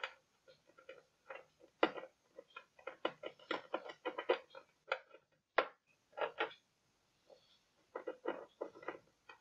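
Tester probes clicking and tapping against the LED contacts of a TV backlight strip, in irregular light ticks with short pauses.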